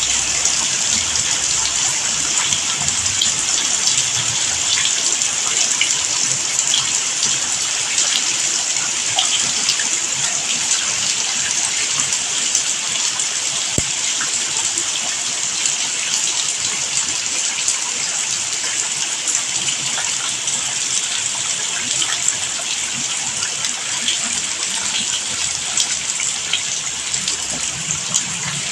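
Steady rain falling: an even hiss dotted with the ticks of countless single drops.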